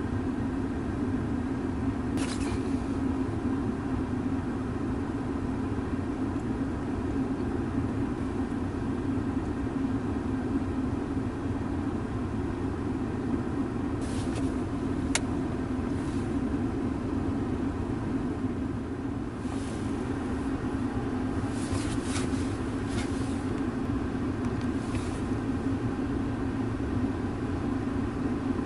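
A car's engine idling, heard from inside the car: a steady low rumble, with a few faint clicks here and there.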